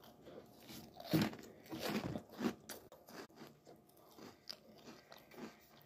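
Flamin' Hot Cheetos Minis being bitten and chewed: irregular crunches, loudest over the first two and a half seconds, then softer, sparser chewing.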